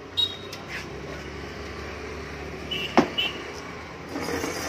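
A punctured scooter wheel knocking and clacking on a concrete floor as it is handled, with one sharp knock about three seconds in, the loudest sound, over steady street traffic.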